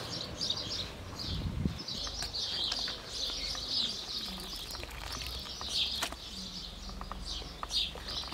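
Birds chirping steadily in the background, with a few sharp clicks of a spatula against a metal pot as boiled grape leaves are lifted out of the water.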